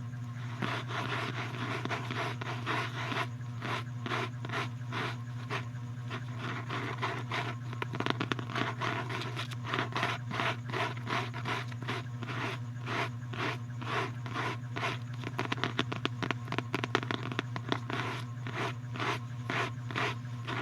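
Repeated scraping strokes on a surface, about two to three a second, beginning about a second in and going on steadily, over a steady low hum.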